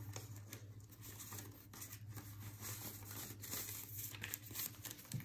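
Paper US dollar bills rustling and flicking as a stack of cash is counted by hand, many short crinkles one after another, over a low steady hum.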